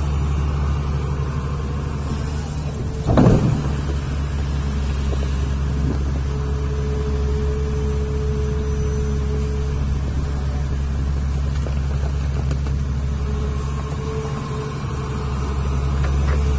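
Hitachi Zaxis 470H excavator's diesel engine running steadily under load through a dig-and-load cycle, with a sharp clank about three seconds in and a thin whine from about six to nine seconds in while the bucket digs.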